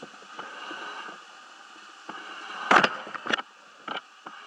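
Sharp knocks and clatter of a diver's gear and ladder as he climbs down, a loud pair about three seconds in and a smaller one near the end, over a steady hiss.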